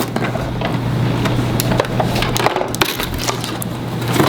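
Cardboard box and plastic packaging being handled as a plastic toy car is pulled out of its box: scattered clicks, scrapes and crackles.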